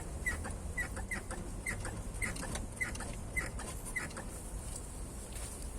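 Front suspension of a BMW E39 squeaking as the car's front is rocked up and down by hand: a series of short, high squeaks, about two a second, that stop about four seconds in. The owner traces the squeak to torn rubber boots on the ball joints.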